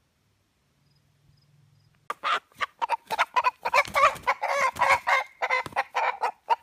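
Rooster squawking and clucking loudly over and over while its wings flap, starting about two seconds in, as it is pinned to the ground against its will.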